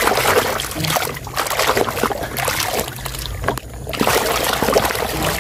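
Muddy water sloshing and splashing in a plastic tub as a hand scrubs and swishes a plastic toy truck through it, with small clicks of the toy. The sloshing lets up briefly about three and a half seconds in.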